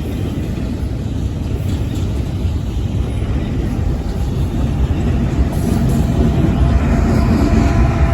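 A long train rolling past as it slows, a steady low rumble that grows louder, with a faint steady whine joining near the end.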